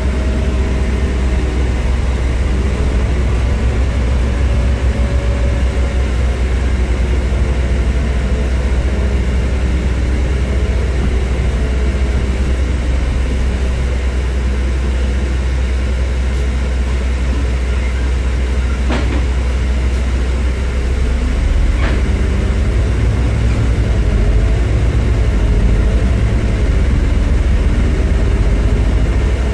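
Scania E400 MMC biogas double-decker bus under way, heard from its upper deck: a steady low engine drone with a faint whine that rises and falls as the bus changes speed. Two short sharp rattles come about two-thirds of the way through, a few seconds apart.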